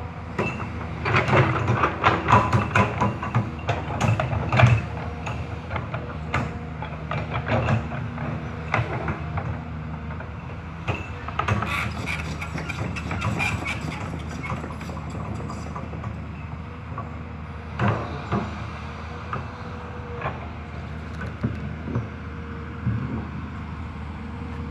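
Hyundai HX210S crawler excavator working: its diesel engine runs steadily under frequent metallic clanks and knocks, thickest in the first few seconds and again about halfway through.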